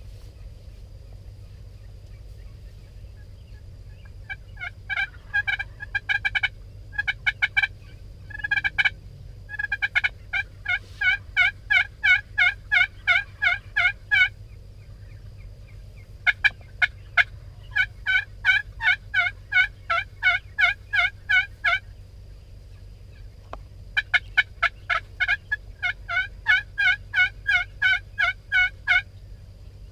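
Turkey yelping: long runs of evenly spaced, pitched yelps, about three to four a second, in five bouts separated by short pauses.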